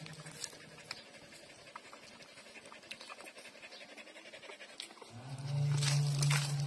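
Puppies suckling from a standing mother dog: a quick run of soft clicks and panting breaths. A low steady hum of background music comes back in about five seconds in.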